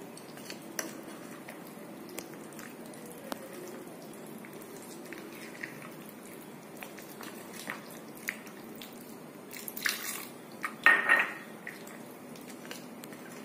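Metal spoon stirring wet maize-flour batter in a ceramic bowl, with light clinks against the bowl and wet squishing. The clinks come at irregular intervals, and a louder clatter of knocks comes about ten to eleven seconds in.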